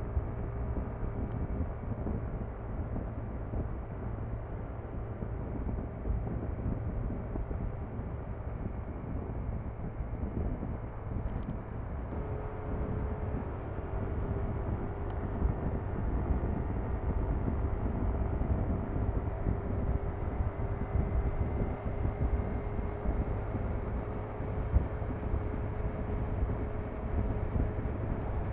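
Yamaha NMAX scooter's single-cylinder four-stroke engine and CVT droning at highway speed, heard from the rider's seat with steady wind rush and road noise. The engine hum steps up slightly about twelve seconds in.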